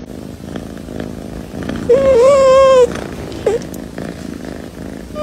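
Folded-ear tabby cat purring as it is stroked, a steady rough hum, with one drawn-out wavering mew about two seconds in and a short chirp a second later.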